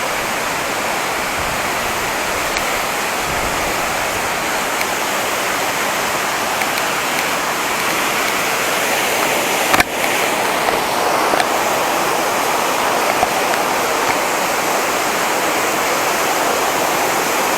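Waterfall rushing steadily, close by. There is a single sharp click about ten seconds in.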